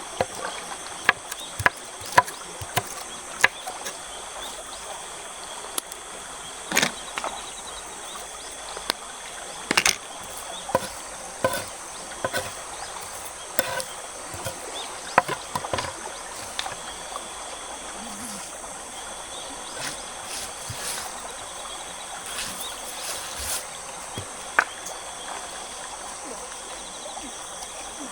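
Steady rush of a forest stream with insects trilling in steady high tones, broken by scattered sharp snaps and clicks, frequent in the first half and sparse later.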